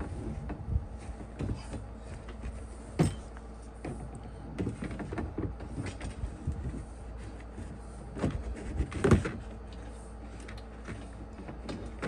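Plastic running-board step being handled and fitted onto the aluminum board: scattered light knocks and rubbing, with a sharper knock about three seconds in and a few more close together around nine seconds in.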